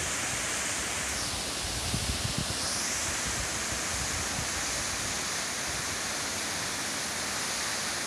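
Steady rushing of a tall waterfall falling onto rocks, with a few soft low bumps about two seconds in.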